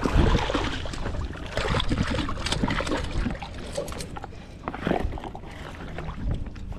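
A big bluefish splashing in the water against the side of a boat, loudest right at the start, then a run of knocks and rubbing handling noise on the fibreglass hull.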